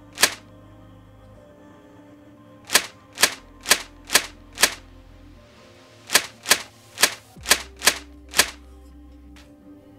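Loud, sharp typewriter key strikes: one just after the start, then a run of five and a run of six, each about half a second apart, over soft background music.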